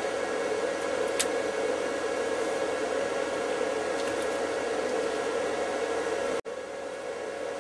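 Steady fan-like whir with a strong hum, with a couple of faint clicks about one and four seconds in; the sound drops out for an instant about six and a half seconds in.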